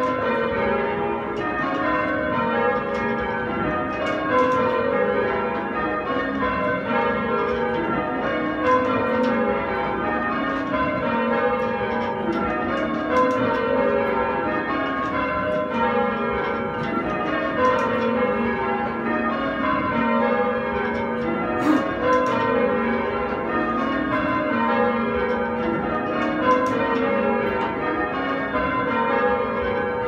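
A ring of eight Taylor church bells, cast in 1898 and 1901, being full-circle rung in changes. The strokes come in even rows that run down from the highest bell to the lowest, and the pattern repeats every couple of seconds.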